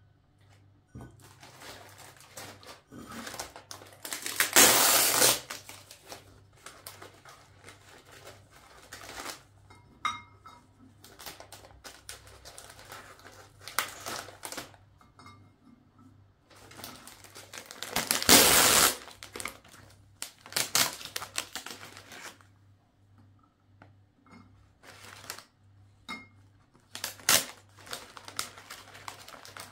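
Biscuit packaging being handled: cardboard boxes and plastic and foil wrappers rustling, crinkling and tearing as they are opened, with light clicks of biscuits and packs set down on a cake stand and table. Two louder bursts of rustling stand out, about five seconds in and again past the middle.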